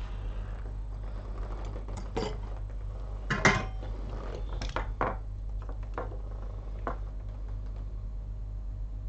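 Small tools and parts being handled on a repair bench: a few light clicks and clinks, the loudest about three and a half seconds in, over a steady low electrical hum.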